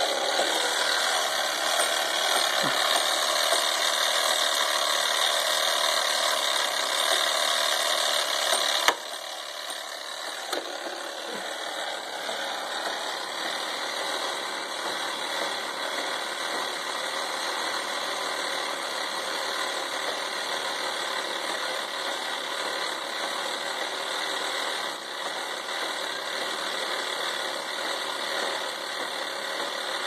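Steady hissing background noise that drops suddenly in level with a click about nine seconds in, then carries on quieter.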